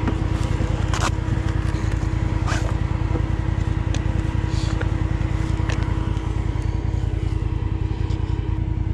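Side-by-side UTV engine running steadily at an even speed, with no revving, and a few light knocks over it.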